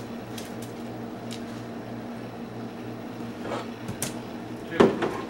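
Steady low electrical hum of a household appliance, with a few light clicks and one louder knock near the end.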